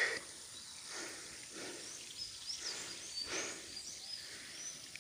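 Footsteps rustling and crunching through dry grass and brush, about one step a second, with small birds chirping high in the background.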